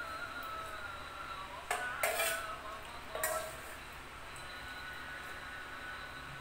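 Spoon clinking and scraping against a small saucepan while scooping meatball soup, with three sharper clinks around two to three seconds in, the second ringing briefly.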